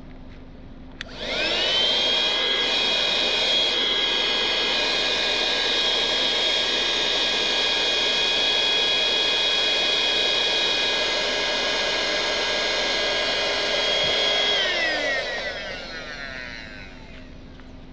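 Small handheld electric air pump clicked on about a second in; its motor whines up to speed and runs steadily, sucking the air out of an inflatable car air mattress. Near the end it is switched off and its whine falls in pitch as it spins down.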